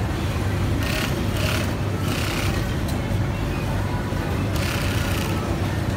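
Juki industrial sewing machine humming steadily, with a few short bursts of higher hiss as the fabric is fed and stitched under the presser foot. Music plays in the background.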